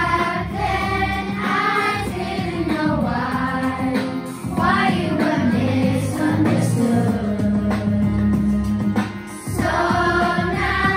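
Children's choir singing together over an instrumental accompaniment, with a brief break between phrases about nine and a half seconds in.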